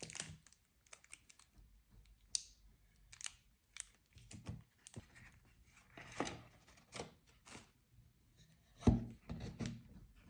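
Cigars being handled in a wooden cigar box: light rustles and small taps, then a thin wooden sheet laid back over them. The wooden lid closes with a knock about nine seconds in, followed by a few lighter knocks.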